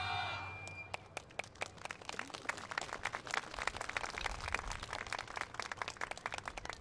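The final beat of a Japanese taiko drum ensemble rings out and fades within the first second, then a crowd applauds with scattered claps.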